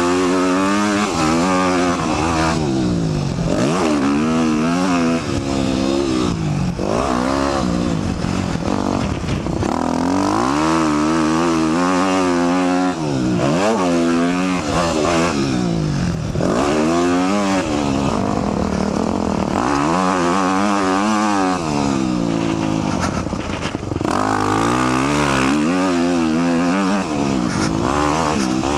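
2004 Yamaha YZ250F dirt bike's single-cylinder four-stroke engine under hard throttle, revving up and dropping back over and over, climbing and falling in pitch every one to two seconds.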